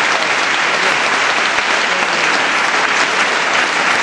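Audience applauding, a steady dense clapping throughout.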